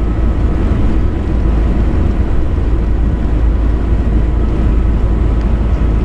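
Steady engine and road noise inside the cab of a 22-foot RV at highway speed: a loud, unbroken deep rumble.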